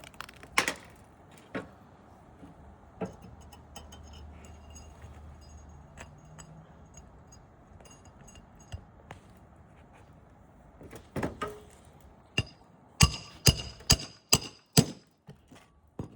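Sharp knocks and taps of tool work on asphalt roof shingles during a shingle repair: a few separate strikes at first, then a quick run of five or six strikes near the end.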